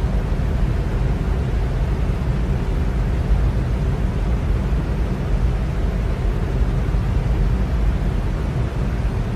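Electric fan running steadily: an even whooshing noise, strongest in the low range, with no change in speed.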